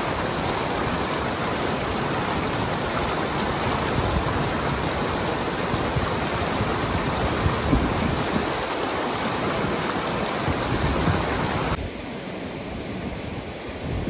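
Rushing river water, a steady loud rush with no rhythm. Near the end it drops suddenly to a quieter level.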